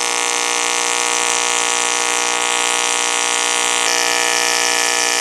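AC TIG welding arc on aluminium from a Bossweld TS200 inverter welder set to about 70 amps: a loud, steady buzz with a bright hiss over it.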